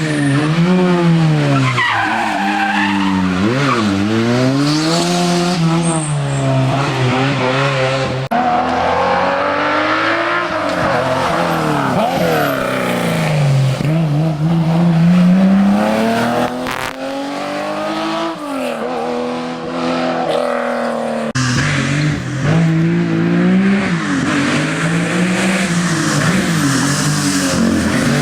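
Historic rally cars driven hard on a special stage, engines revving up and dropping back repeatedly with gear changes and lifts. The sound cuts abruptly about eight and about twenty-one seconds in, as one car's run gives way to the next.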